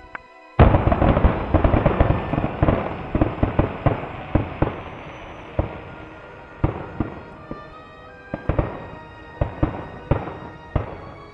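Fireworks going off: about half a second in, a sudden dense run of bangs and crackles starts, then thins out into separate sharp pops, over faint background music.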